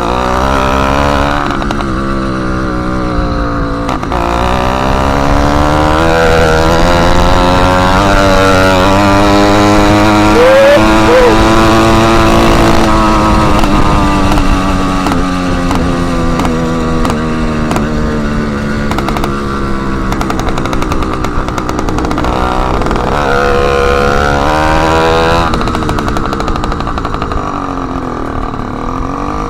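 Motorized bicycle's small two-stroke kit engine running loud with the exhaust tip removed, its pitch rising as it speeds up over the first dozen seconds, easing off, then revving up and down again near the end.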